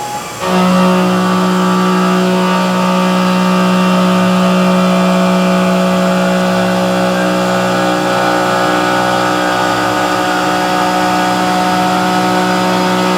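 CNC milling machine cutting 7075-T6 aluminium. About half a second in, the cutter bites and a loud, steady whine takes over and holds evenly.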